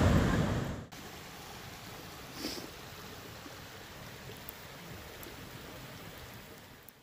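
Wind and breaking surf on the beach, cut off abruptly under a second in; then a wood campfire hissing and crackling steadily, with one louder pop about two and a half seconds in.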